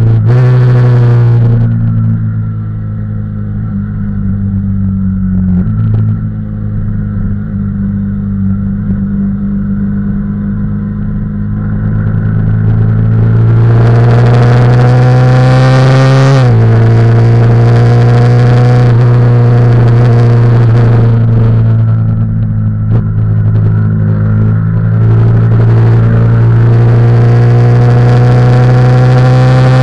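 Yamaha YZF-R15's single-cylinder engine heard from the bike's cockpit during a track lap. About two seconds in it falls back to a lower, steadier note for around ten seconds. It then revs up with a rising whine, drops suddenly in pitch at a gear change about halfway through, and pulls hard again near the end after a short lull.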